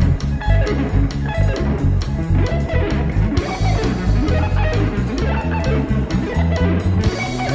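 Instrumental band music: electric guitar and bass guitar playing over a drum beat.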